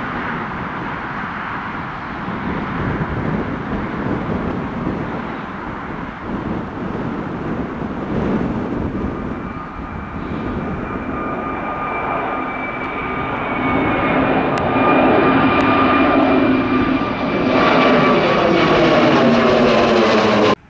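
Wizz Air Airbus A320-family twin-jet on take-off and initial climb: steady jet engine noise that grows louder as the aircraft comes overhead. A high engine whine comes in about halfway through, and the loudest stretch comes in the last few seconds as it passes overhead.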